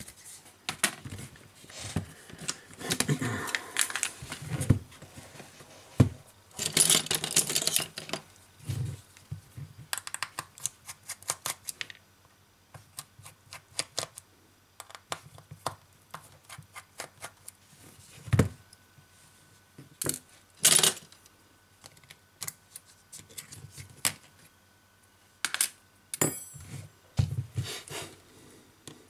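Disassembly of a BQ Aquaris E6 smartphone: the plastic back cover is handled and pulled free with a couple of scraping rasps in the first eight seconds, then a precision screwdriver clicks and taps on the small screws of the phone's internal frame in a long string of sharp clicks.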